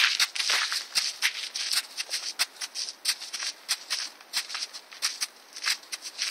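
Hooves of a walking gypsy cob and its handler's boots crunching on gravel: an irregular run of steps, several a second.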